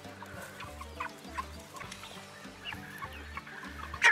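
A flock of broiler chickens clucking and peeping in short, scattered calls while they feed on grass, over faint background music.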